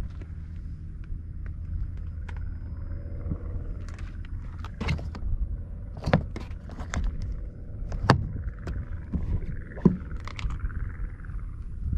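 A series of sharp plastic clicks and taps as a hand flips open the cover of a pickup truck's trailer-hitch wiring socket and handles around the tailgate. A steady low rumble runs underneath.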